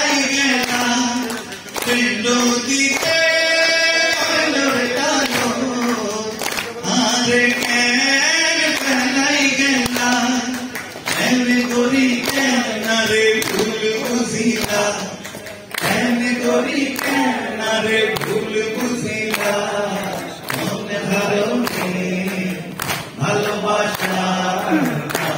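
A male vocalist singing a Bengali song live into a microphone through the hall's PA speakers, with several long held notes.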